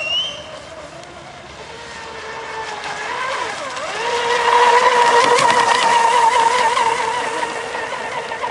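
Brushless electric motor of a radio-controlled racing catamaran whining at speed over a hiss. It drops away about a second in, then grows louder as the boat comes nearer, loudest a little past halfway, and eases off near the end.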